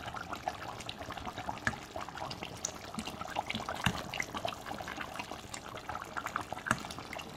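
Thick tomato sauce simmering and bubbling in a cooking pot, with liquid trickling off a perforated metal skimmer as cooked vegetables are lifted out. Many small irregular pops and clicks.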